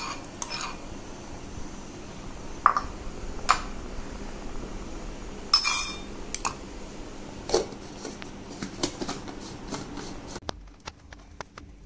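Scattered clinks and knocks of metal kitchen utensils and dishes, a dozen or so separate strikes, over a faint low hum that drops away near the end.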